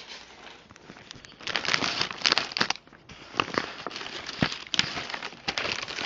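Plastic poly mailer and the thin plastic bag inside it crinkling and crackling as the package is handled and its contents pulled out. It is quiet for the first second and a half, then a loud stretch of crinkling, then intermittent crackles.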